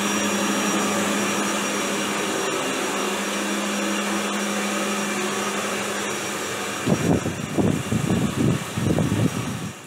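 Electric wall-mounted hand dryer blowing, a loud steady rush of air with a steady hum. About seven seconds in the hum stops and gives way to a few seconds of loud, uneven noise.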